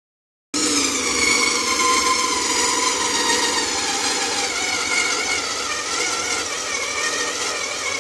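An electric motor running with a steady whine that wavers a little in pitch, starting abruptly about half a second in.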